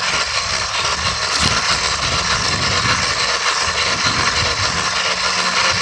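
Steady rushing noise of wind over a bike-mounted microphone and tyres rolling on concrete as a dirt bike rides along a sidewalk, growing slightly louder.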